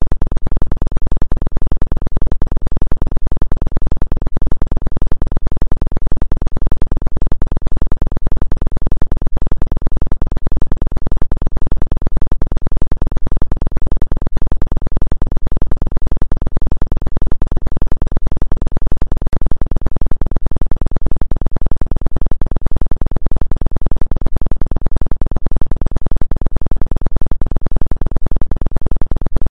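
Synthesized low electronic tone pulsing steadily about twice a second: a 2 Hz 'healing frequency' track.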